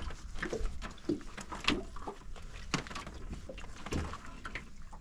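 Low wind rumble on the microphone, with scattered light knocks about a second apart as the rope of a crab hoop net is hauled in hand over hand over the side of an aluminium dinghy.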